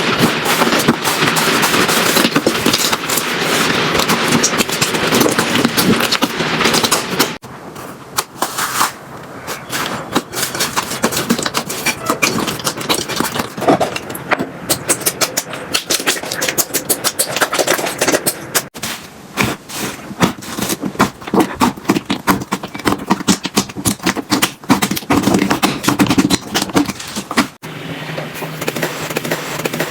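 Slime squished and pressed by hand, making a dense run of crackling pops and clicks. About a quarter of the way in the texture changes to sparser, sharper clicks, as a different slime is handled.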